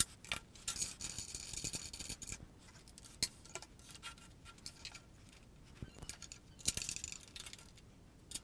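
Trigger bar clamps being squeezed tight onto an aluminium beam, with the beam handled on the table: faint scattered clicks and two short rasping stretches, about a second in and again near the end.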